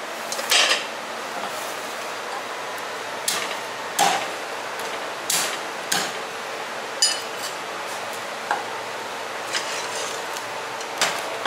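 Chinese cleaver striking roast duck on a thick end-grain wooden chopping block: sharp knocks, irregularly spaced a second or two apart, with a light metallic clink that rings briefly about seven seconds in.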